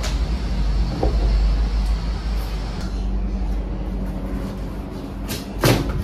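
Handling noise as a large Peltier cooler module with a heatsink and fan is lifted and pushed into a foam-board and 3D-printed plastic mount. Rubbing and scraping runs over a low rumble, with a knock about a second in and a louder knock near the end as the unit seats.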